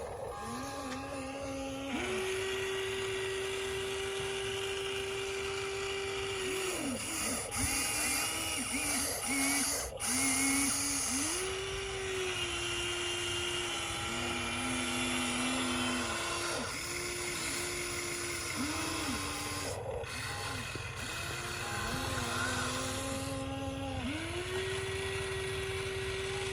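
Huina radio-controlled model excavator's small electric motors whining, a held tone that starts, stops and steps up and down in pitch every few seconds, with short gliding rises and falls between.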